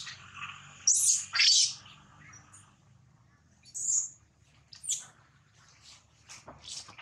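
Infant long-tailed macaque giving short, high-pitched squeals. Two loud ones come about a second in, the second sweeping down in pitch, followed by scattered fainter squeaks over the next few seconds.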